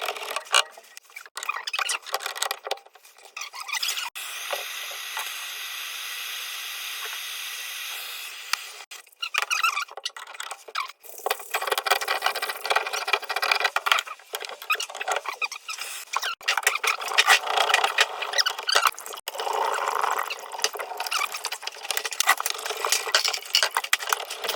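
Squeaking, scraping and clicking of hand work on plumbing fittings, with a steady hiss from about four to eight seconds in.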